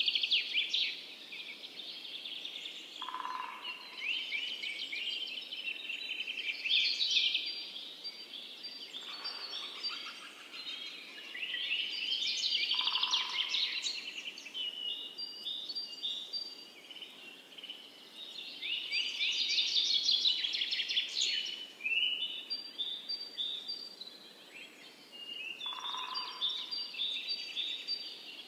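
Small birds singing: bursts of rapid chirps and trills that come back every few seconds, with a few short, lower single notes in between.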